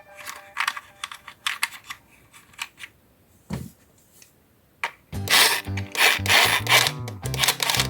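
Scattered short clicks and rubbing, like plastic toy parts being handled and fitted together. About five seconds in, background music with a steady beat starts up.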